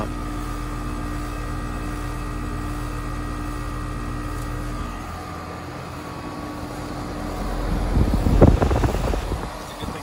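2023 Carrier Sentry 15 two-ton heat pump outdoor unit running in heat mode: a steady hum from the compressor and condenser fan. Near the end, a louder rushing gust of air from the fan's discharge buffets the microphone.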